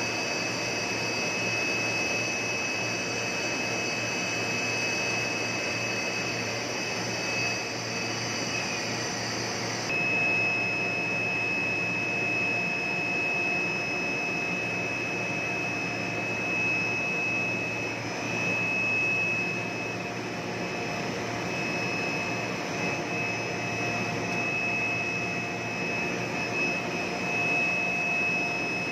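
Blown-film extrusion line running: a steady machine hum with a high-pitched whine over it, whose upper tone changes abruptly about ten seconds in.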